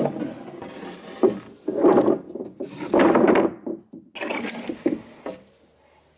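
Wooden framing lumber being handled: irregular knocks and thunks with longer scraping rubs of board against board or ground.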